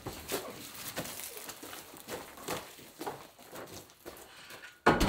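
Irregular crunching footsteps of several people on a loose gravel floor, with handling knocks as a plastic-wrapped door panel is carried and lifted into place. A sudden, much louder scraping noise starts right at the end.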